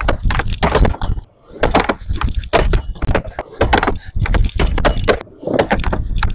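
Skateboard on a plywood mini-ramp: wheels rolling with a low rumble and the board and trucks knocking and slapping on the wood in a rapid run of sharp impacts, over several blunt kickflip attempts in quick succession.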